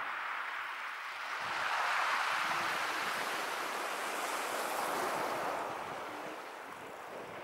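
Small sea waves washing onto the shore, a steady hiss that swells twice and then eases off.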